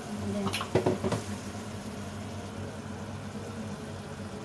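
Kitchen sounds at a stove: a quick cluster of knocks about a second in as a wooden spatula and an electric kettle work over a pan of tomato sauce, over a steady low hum.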